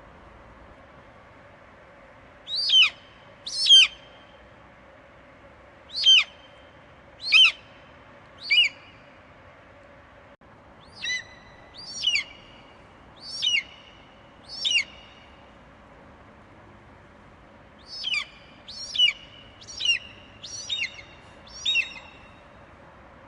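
Eagle screeching: short, piercing high calls that each drop steeply in pitch, given in four runs of two to six calls. A faint steady hum sits underneath.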